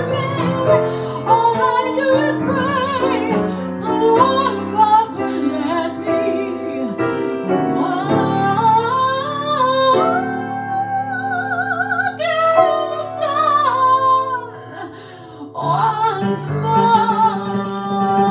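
A woman singing held notes with vibrato over piano accompaniment. The music drops briefly to a quieter passage about three-quarters of the way through.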